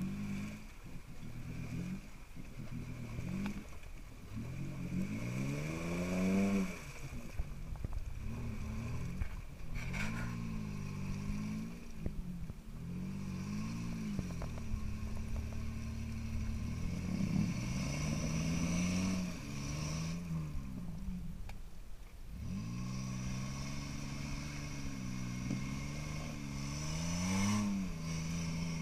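Mitsubishi Pajero's engine revving up and dropping back in repeated surges of a few seconds as the 4x4 churns forward through a deep mud rut.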